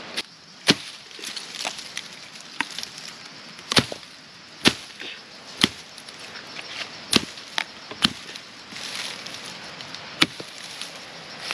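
Firewood being chopped with a blade: about ten sharp strikes into wood at an uneven pace, a few of them coming close together.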